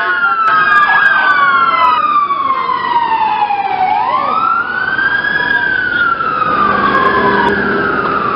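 Emergency vehicle sirens wailing, their pitch sliding slowly down and back up, with more than one siren overlapping.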